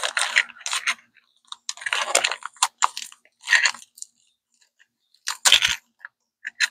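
Paper toy wrapper crumpled and crinkling in the hands in several irregular bursts, the loudest crackle about five and a half seconds in, with a soft thump under it.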